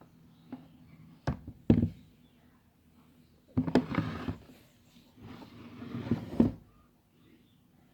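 Handling noises: two sharp clicks, then two short scraping, rustling bursts with knocks in them, the second ending abruptly. No motor is running.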